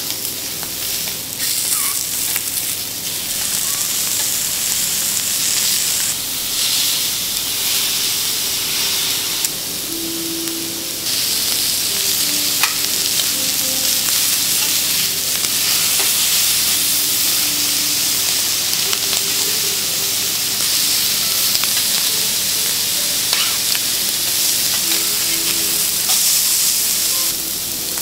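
Lobster and scallops sizzling on a hot steel teppanyaki griddle, with light clicks of a metal spatula and tongs turning them. The sizzling grows louder about a third of the way through and stays up until near the end.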